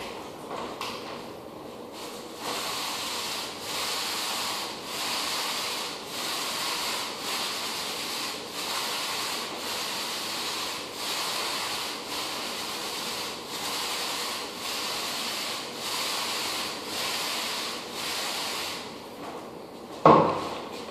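Applicator pad on a pole rubbing back and forth across a hardwood floor as finish is spread, in even strokes about once a second. A single loud knock comes near the end.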